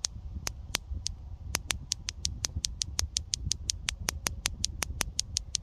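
A clackers toy, two plastic balls on plastic arms, knocking together. A few separate clacks come first, then from about a second and a half in a fast, even clacking of about six a second.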